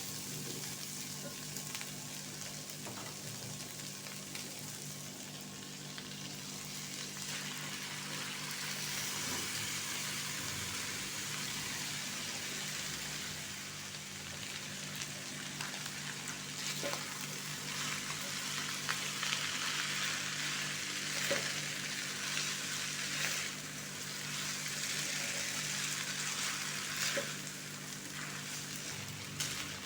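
Pad Thai ingredients sizzling as they are stir-fried in hot oil in a pan. The hiss grows louder partway through, and the spatula clicks against the pan a few times.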